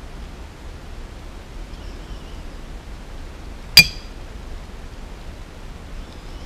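A single sharp clink with a brief high ringing, as the dangling micro-quadcopter frame with its small motors knocks against a glazed ceramic dish, over a steady faint hiss.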